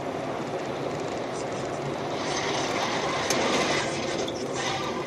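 Steady road and wind noise inside a moving car. About two seconds in a louder rushing hiss builds, with a sharp knock about three seconds in, as a car ahead crashes into the roadside barrier.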